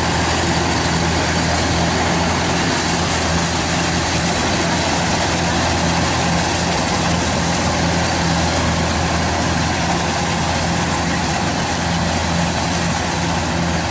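Kubota DC-105X combine harvester running steadily under load, cutting and threshing rice: a steady diesel engine drone mixed with dense threshing and straw-throwing noise.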